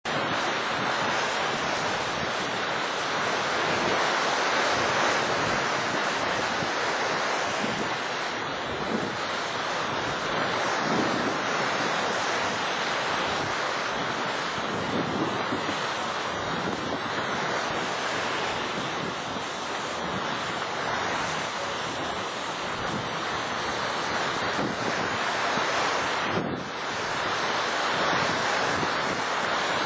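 Steady rushing noise of wind on the microphone mixed with river water, swelling and easing, with a brief dip near the end. No distinct paddle-wheel beat or engine sound from the paddle steamer comes through.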